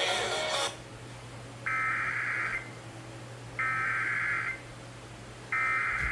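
Radio music cuts off under a second in. Then come three bursts of data tones, each about a second long with a second's gap between them: the Emergency Alert System SAME header, encoding a Flash Flood Warning.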